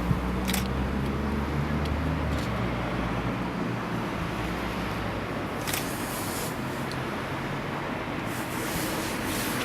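Steady background rumble and hiss, with a low engine hum through the first couple of seconds and a few brief clicks.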